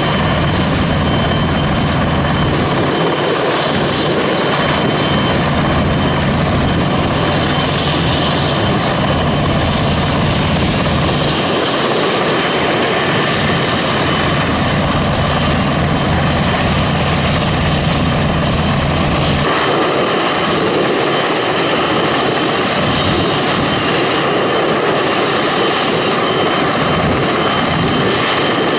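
NHIndustries NH90 twin-turboshaft helicopter running on the ground with its main rotor turning: a steady high turbine whine over a low rotor beat. The low beat weakens about two thirds of the way through while the whine carries on.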